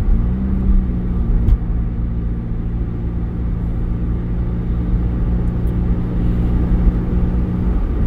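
Car engine and tyre noise heard from inside the cabin while driving at a steady speed: a low, even hum whose pitch steps up slightly just after the start.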